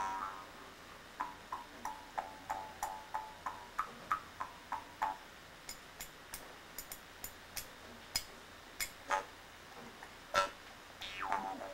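Amis mouth harp being played: a run of twanging plucks, about three a second, each ringing briefly, then a stretch of sharper clicks with little tone, and the twanging picks up again near the end.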